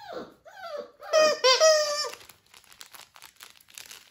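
Dalmatian puppy whining in high cries: two short falling ones, then a louder, longer one about a second in. These are followed by faint scratching and rustling as paws move over the fleece-covered raised dog bed.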